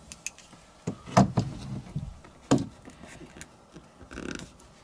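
A hand roller and fingers working foil-backed butyl sound-deadening mat down onto a truck's sheet-metal floor: scattered light clicks and knocks, two sharper knocks about a second in and about two and a half seconds in, and a soft rustle of the foil near the end.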